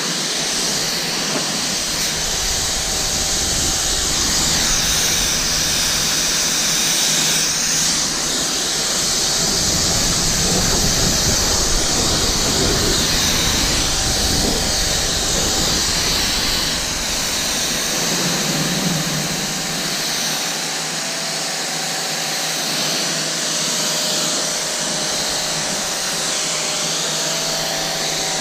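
Kranzle 1122TST electric pressure washer spraying water over a car, a steady loud hiss of spray with a faint hum beneath. It cuts off suddenly at the end.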